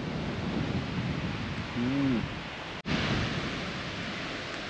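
Steady outdoor wind and surf noise, with a short hummed 'mm' from a person about two seconds in. The sound cuts out for an instant just before three seconds, then carries on slightly brighter.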